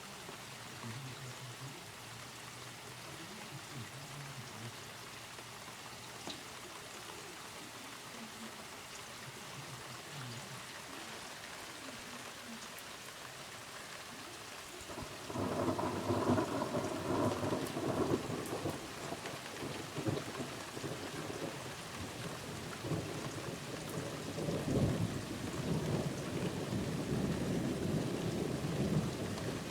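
Steady rain falling, with faint low rumbles of distant thunder. About halfway through a much louder roll of thunder breaks in suddenly and rumbles on in several swells to the end.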